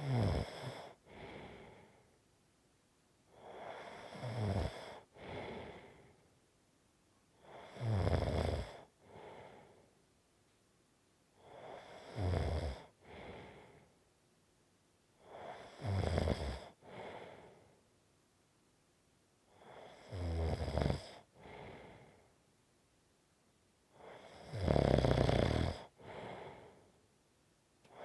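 A sleeping person snoring in a steady rhythm, about one snore every four seconds: each a louder, low-pitched snore on the breath in, followed by a shorter, softer breath out. The last snore, near the end, is the loudest.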